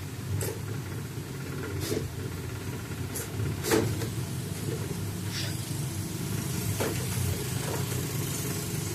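A steady low motor hum, with a few sharp clicks and taps scattered through it, the loudest about four seconds in.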